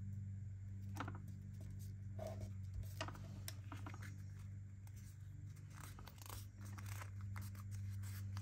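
Paper and card being handled: scattered soft rustles, light taps and scrapes of paper pockets and ephemera being moved, over a steady low hum.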